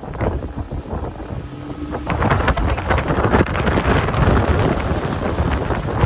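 Wind buffeting the microphone on a moving vehicle, with road and engine noise from the Toyota Previa ute beneath. The rush grows louder about two seconds in and stays heavy and gusty.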